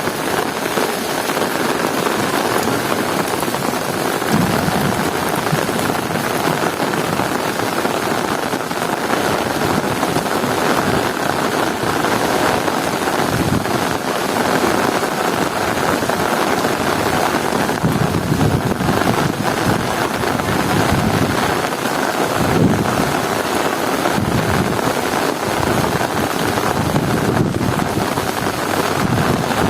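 Heavy rain pouring down in a steady, dense hiss, with low rumbling swells rising and fading several times.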